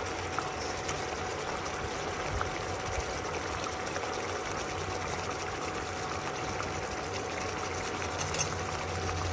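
Steady hum with an even hiss in a kitchen while a pot of curry boils, and a few faint clicks.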